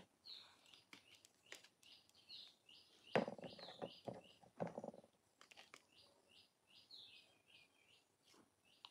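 Faint, rapid chirping of small birds, a quick run of short falling chirps repeated every few tenths of a second. A few light clicks and a knock about three seconds in, followed by a short rustle, from makeup items being handled.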